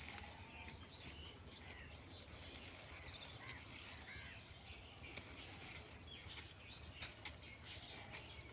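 Faint outdoor ambience with small birds chirping, many short, quick chirps, over a low steady rumble, with scattered crisp clicks throughout.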